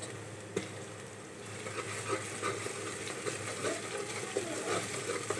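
Onions and ginger-garlic paste frying in oil in a pressure cooker, a soft steady sizzle with small crackles, and a spoon stirring and knocking against the pot about half a second in.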